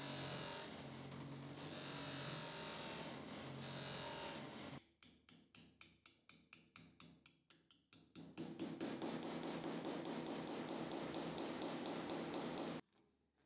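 Bench polisher running, its buffing wheel spinning with a low hum while a small steel part is polished against it. After about five seconds this gives way to a rapid run of sharp regular clicks, about five a second, then a steady hiss that cuts off suddenly near the end.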